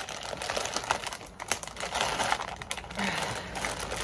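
Crinkling plastic of a dog-treat bag as it is gripped and pulled at by hand to tear it open, an uneven run of small crackles.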